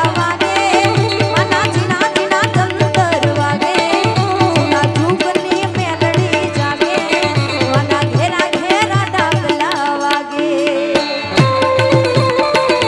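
Live Gujarati folk (dayro) music: hand drums keeping a steady, driving rhythm under a wavering melody on harmonium and other instruments. The drum pattern drops out briefly near the end, then comes back in.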